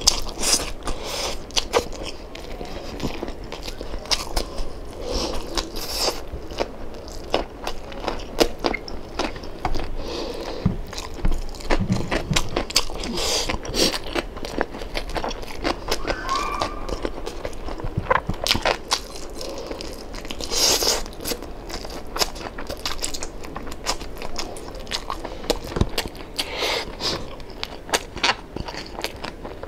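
Mukbang eating sounds: a person biting and chewing deep-fried crispy pata (pork knuckle), with many irregular crisp crunches and crackles.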